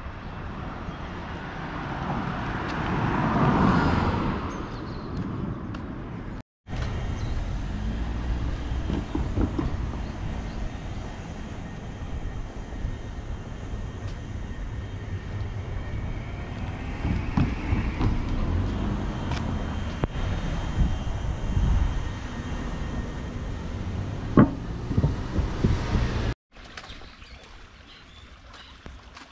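Outdoor road ambience: a vehicle passes close by, swelling and fading a few seconds in, then a steady low rumble of traffic with a few short knocks. The sound drops out for an instant twice.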